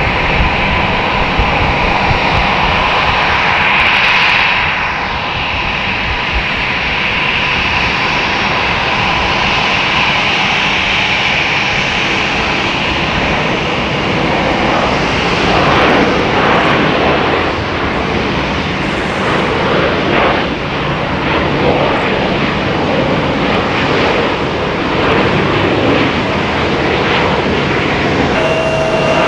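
Boeing 737's jet engines on final approach, a steady roar with a high whine. Past the middle, as the jet touches down and rolls out on the runway, the whine fades into a rougher roar.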